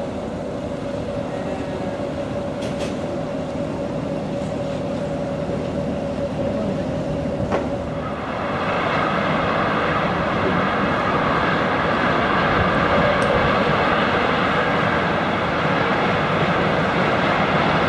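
Steady mechanical drone of a river passenger ship's engine and hull noise. About eight seconds in it becomes louder and hissier, then holds level.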